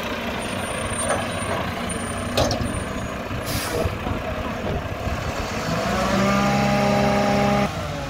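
Diesel engine of a Mack garbage truck with a McNeilus front-loader body running as the truck creeps forward, with a few sharp clanks in the first half. About six seconds in the engine rises to a steady, higher drone that cuts off abruptly just before the end.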